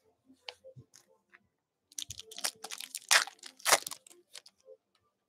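Foil wrapper of a football trading-card pack crinkling and tearing as it is ripped open by hand. Faint rustles and ticks come first, then a dense run of sharp crinkles about two seconds in, loudest around the three-second mark.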